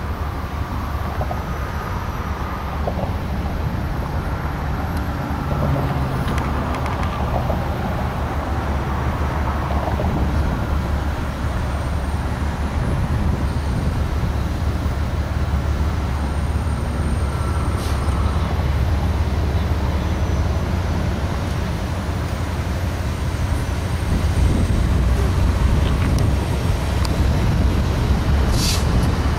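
Diesel freight locomotives approaching at a distance with a steady low rumble that grows gradually louder, stepping up a few seconds before the end as they draw closer.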